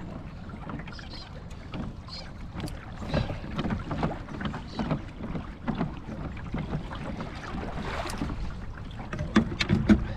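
Wind buffeting the microphone over water lapping against a kayak hull, with scattered small knocks and clicks and a cluster of louder ones near the end.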